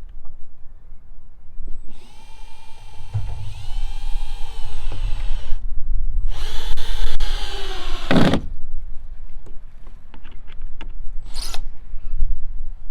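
Power drill driving screws into wood: two runs of a few seconds each, the motor's whine dipping in pitch as it takes the load, then a short burst near the end.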